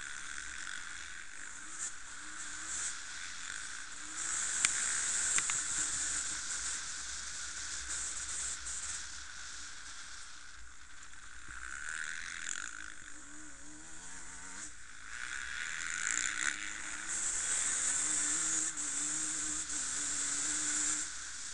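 Dirt bike engines buzzing at high revs, the pitch rising and falling as the throttle opens and closes.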